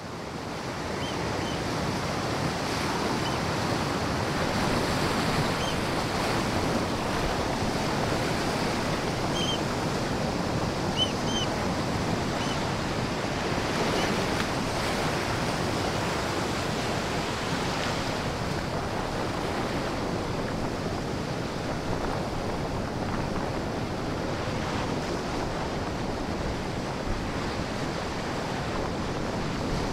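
Storm wind and heavy surf: a steady, dense rush of wind and breaking waves pushed up by a storm-driven high tide, with a few faint, brief high chirps in the first half.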